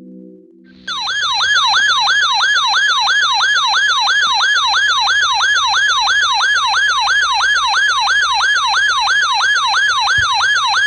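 A weather radio's electronic warning alarm: a siren-like tone sweeping rapidly and repeatedly, about three sweeps a second, each gliding down in pitch. It starts about a second in and sounds steadily, signalling an incoming flash flood warning broadcast.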